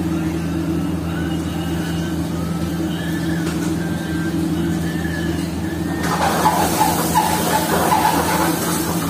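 Steady hum of a commercial kitchen's extractor hood and gas burners. About six seconds in, a loud sizzle and crackle starts as food fries in a hot pan on the gas range.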